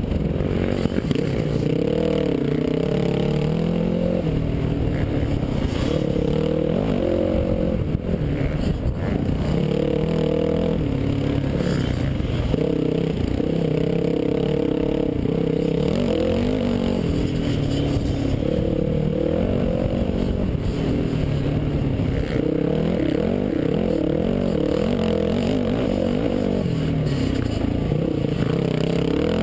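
Dirt bike engine ridden hard on a trail, its revs rising and falling every second or two as the rider works the throttle and gears, heard from a helmet-mounted camera over a constant low rumble.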